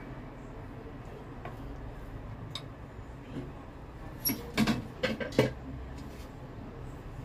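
Kitchenware clinking: a few light taps of a metal spoon against a ceramic plate as it tosses cornstarch-coated chicken pieces, then a quick run of four or five louder clinks and knocks a little past the middle. A steady low hum runs underneath.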